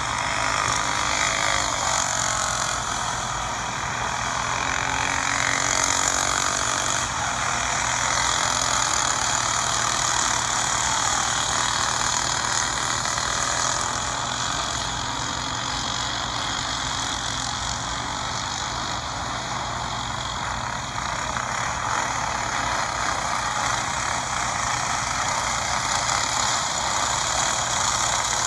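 Racing karts' small engines running hard as the karts lap a dirt oval, a steady engine din whose pitch rises and falls over the first several seconds as karts pass. It is heard thin, played back through a phone's speaker.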